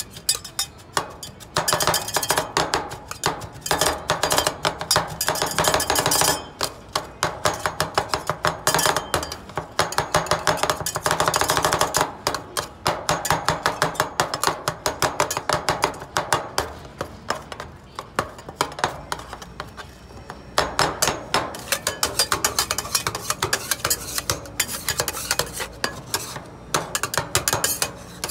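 Metal spatulas rapidly chopping and tapping on the steel plate of an iron-plate (rolled) ice cream griddle, in fast runs of clicks broken by a few short pauses.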